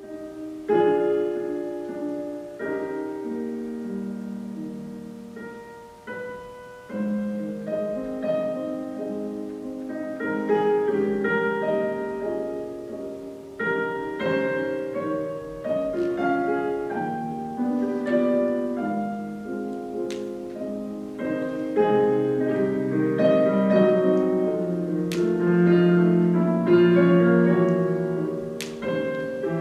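Solo piano playing a slow classical ballet-class accompaniment in sustained chords and phrases, growing louder in the second half.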